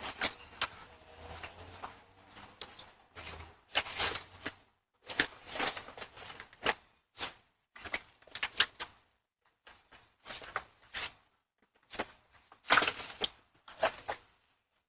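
A series of irregular knocks, clunks and clatters, bunched in short clusters, with a faint low hum under the first few seconds.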